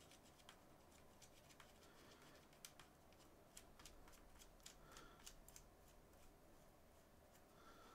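Faint, light clicks of small metal reel parts being handled, mostly in the middle: drag washers being fitted onto the shaft of a Daiwa Alphas SV TW baitcasting reel.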